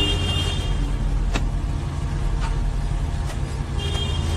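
Diesel truck engine idling, a steady low rumble heard from inside the cab. A short high-pitched tone sounds at the start and again near the end, and there is a single sharp click about a second and a half in.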